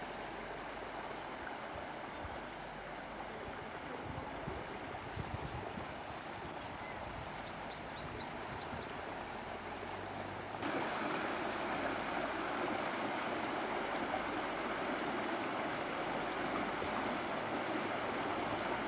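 River water running over rock ledges and shallow rapids, a steady rushing hiss that grows louder about ten seconds in. A short run of high, quick chirps sounds about seven seconds in.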